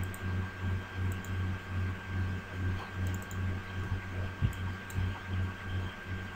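A few faint computer mouse clicks, scattered through, over a low hum that pulses about three times a second and a faint steady high whine.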